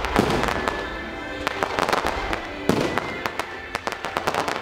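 Aerial fireworks going off in quick succession, with many sharp bangs and crackles coming in clusters. Music plays steadily underneath as the soundtrack of a pyromusical show.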